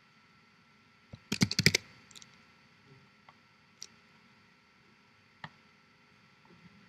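Clicks from working a laptop computer: a quick run of about half a dozen sharp clicks about a second in, then a few single faint clicks spaced out.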